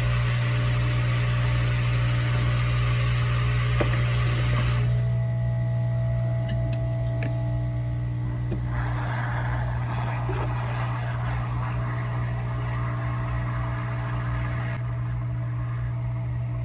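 Hot air rework station blowing with a steady low hum and airflow hiss as it heats a failed capacitor on a MacBook Pro logic board to desolder it. The hiss thins about five seconds in and comes back about nine seconds in as the nozzle is brought over the part, with a couple of faint clicks in between.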